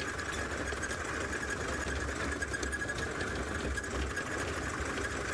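Game-drive vehicle's engine running steadily: a low rumble under a hiss, with a faint, steady high whine.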